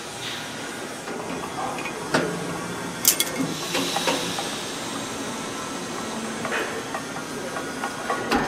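Hand-cranked worm-gear tilting mechanism of a large stainless steel kettle being turned: scattered metallic clicks and clunks from the handwheel, gears and tilting bowl over a steady hiss, with a sharp click about three seconds in.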